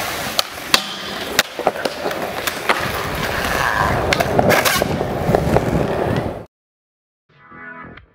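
Skateboard wheels rolling over concrete, with repeated sharp clacks of the board, cutting off abruptly about six and a half seconds in. Faint electronic music begins near the end.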